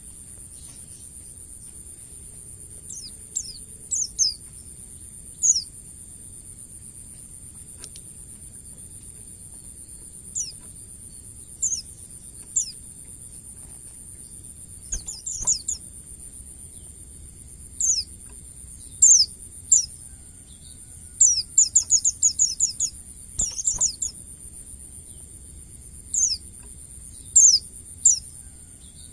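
White-eye (pleci) calling: short, high, downward-sweeping chirps in scattered bursts, with quick runs of rapid notes from about two-thirds of the way in. A steady high-pitched drone runs underneath.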